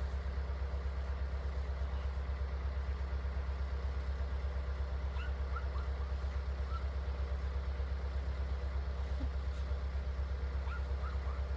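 Skid steer's diesel engine running steadily with a low, evenly pulsing drone.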